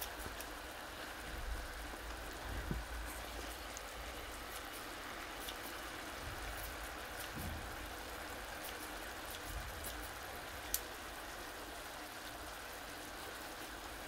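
Marinated pork galbi simmering in its sauce in a frying pan: a steady sizzling hiss, with a few light clicks as tongs and scissors work the meat.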